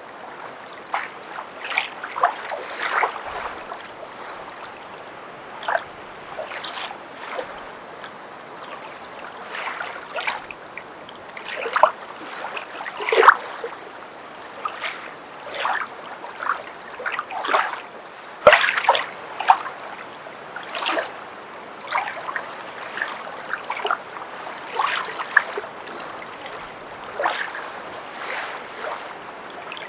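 Footsteps wading through shallow water: irregular sloshing splashes over a steady wash of water, a few louder splashes in the middle.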